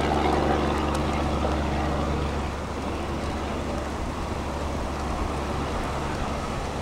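Steady low engine hum of a running vehicle over an even rush of wind noise. The hum drops away about two and a half seconds in, leaving mostly the wind rush.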